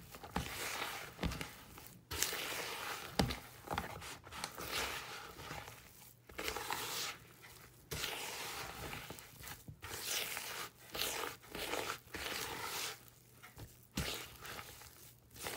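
Hands kneading crumbly cookie dough in a bowl: rustling, squishing strokes about one a second, with short gaps and a few sharp clicks.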